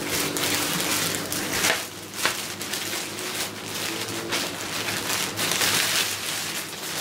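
Clear plastic wrapping being pulled off a glass aquarium and crumpled in the hand: a continuous, irregular crinkling rustle.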